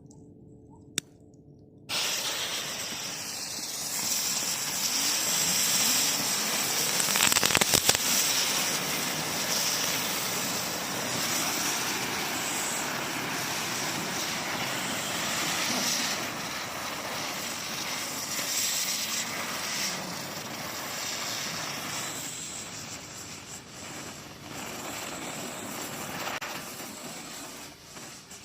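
A small ground firework spraying sparks: a single click about a second in, then a loud, steady hiss that starts suddenly about two seconds in and thins and wavers near the end.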